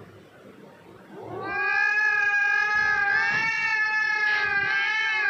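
A cat's recorded yowl played from a phone's speaker: a single long, loud cry that rises in about a second in and then holds a steady pitch, wavering slightly.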